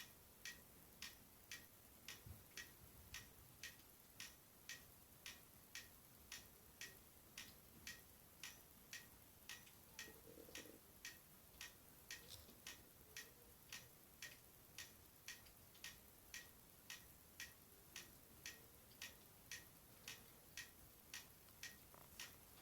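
A clock ticking steadily and faintly, about two ticks a second, over near silence.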